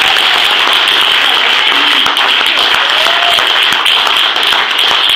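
A roomful of people applauding, a loud, steady clapping.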